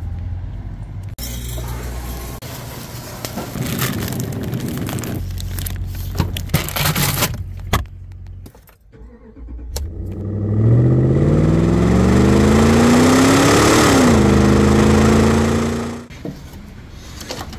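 A truck engine running, with scattered clicks and knocks over the first several seconds. About ten seconds in the engine speeds up, rising steadily in pitch for about four seconds, dips once, holds steady, then cuts off suddenly.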